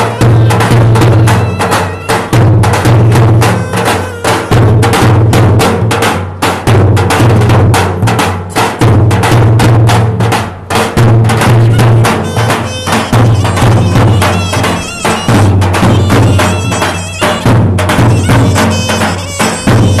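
Two Turkish davul bass drums beaten with a heavy stick and a thin switch, pounding out a rhythm, with a clarinet playing a melody over them that comes through more strongly in the second half.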